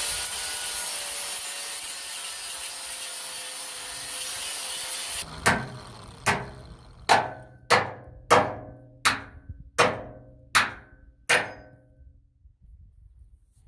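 A grinder working on the steel welding table to strip paint and rust down to bare steel, running loudly for about five seconds before it stops. Then come nine sharp, ringing strikes on metal, about one every 0.7 s.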